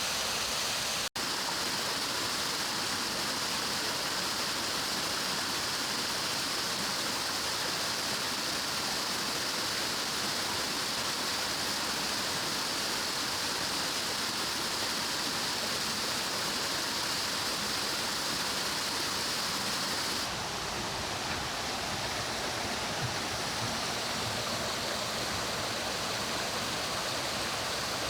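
Mountain stream water rushing in a steady hiss. There is a brief cut about a second in. About twenty seconds in, the sound changes to a deeper, less hissy flow.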